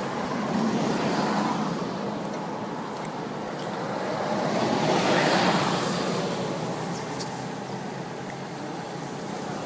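Road traffic noise: a steady hum with a vehicle passing, swelling to its loudest about five seconds in and then fading.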